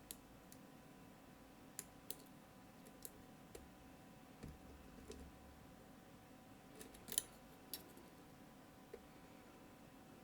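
Faint, irregular metallic clicks of a lock pick working the pins of a Mottura CP6 dimple-and-rotor lock, about a dozen in all, the loudest about seven seconds in.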